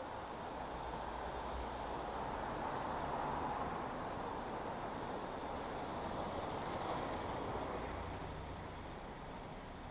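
City street traffic noise: a motor vehicle's engine and tyre noise swells over a few seconds and then fades, over a steady low rumble.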